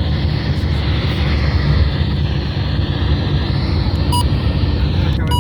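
Steady road and engine noise inside a moving car at highway speed: a deep rumble under a broad hiss from the tyres and wind. Two faint short beeps come near the end.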